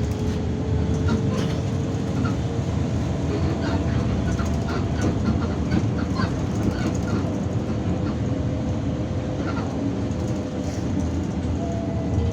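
Irisbus Citelis 12M city bus under way, heard from inside the cabin: a steady engine and road rumble with a slowly drifting whine, and frequent small rattles and clicks.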